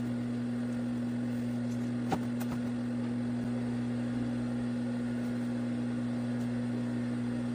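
Industrial sewing machine's motor left switched on, a steady electric hum, with a single light knock about two seconds in.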